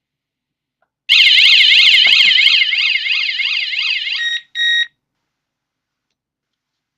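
Digoo DG-ROSA wireless alarm unit's built-in siren sounding about a second in: a loud electronic warble sweeping rapidly up and down, about three sweeps a second, with a few clicks as it starts. It cuts off after about three seconds, followed by one short steady beep.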